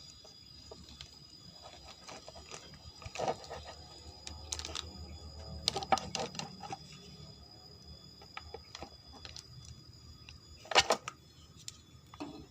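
Irregular clicks, knocks and clatter of parts and tools being handled during washing machine repair work, with the loudest knock about eleven seconds in.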